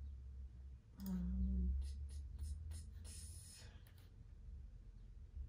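A short low hummed 'hmm' from a woman, then a quick run of computer keyboard and mouse clicks over a couple of seconds, over a low steady hum.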